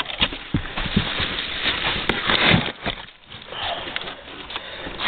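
Crinkling and rustling of a plastic bag and cardboard packing inserts being handled inside a shipping box, with scattered knocks and scrapes.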